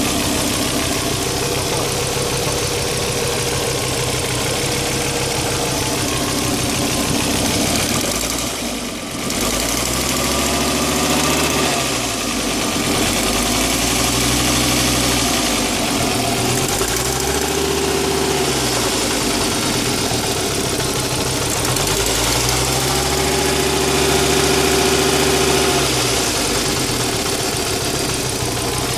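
Fiat Coupe 20V Turbo's turbocharged five-cylinder engine idling, then revved up and let fall back three times. It is making odd noises that the owner suspects come from a damaged turbocharger.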